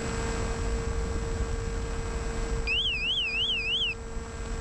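Electric RC plane's brushless outrunner motor and 10x7 propeller running at a steady pitch, with rushing air. About three seconds in, an electronic warbling tone rises and falls about three times a second for roughly a second.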